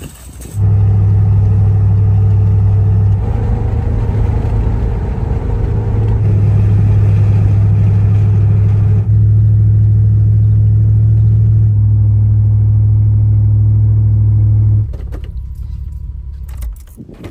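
GMC SUV's engine and exhaust giving a steady, loud, low drone while driving. It comes in several spliced stretches and cuts off abruptly near the end.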